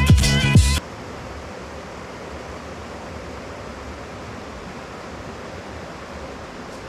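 Background music that cuts off abruptly about a second in, followed by the steady rush of a flowing stream.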